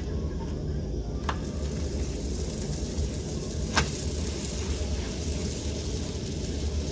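Oiled chapati frying in a hot pan, with a steady sizzle that gets fuller about a second in. Two short ticks, probably of a utensil on the pan: a faint one about a second in and a sharper, louder one near four seconds.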